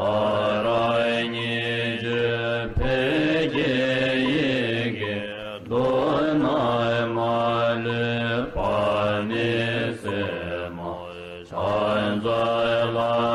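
Sung Buddhist mantra with musical accompaniment: a voice chanting in repeating melodic phrases, each about three seconds long, over a steady low drone.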